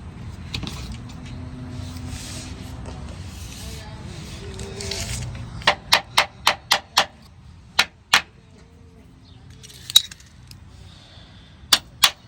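Metal hand tools and bracket hardware clinking and knocking while a running-board bracket is bolted up under the car: first soft handling and rustling, then a quick run of five sharp clicks at about four a second, followed by a few single knocks.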